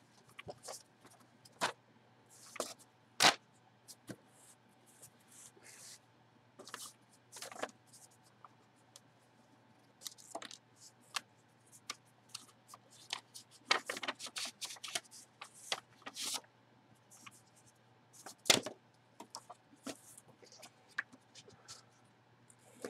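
Paper envelope handled and opened by gloved hands: intermittent rustling and crinkling of paper with scattered sharp clicks and scrapes, over a faint steady low hum.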